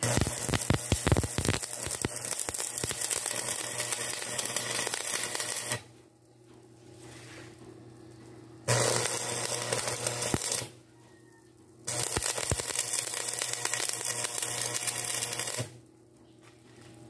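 Stick (arc) welding on steel: the electrode's arc crackling in three runs of about six, two and four seconds with short pauses between. The first run opens with several sharp pops as the arc is struck, and a low hum carries through the pauses.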